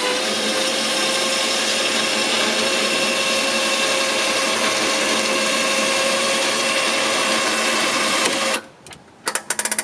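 Champion 4500 lb electric winch motor and gear train running under load, winding in its cable to pull a Kubota RTV forward: a steady, loud whine that cuts off suddenly near the end, followed by a few clicks.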